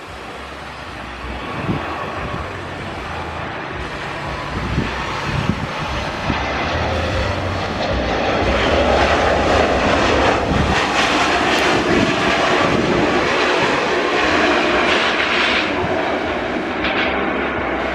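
Airliner jet engines growing steadily louder, peaking about halfway through and staying loud as the aircraft passes close by, with wind buffeting the microphone.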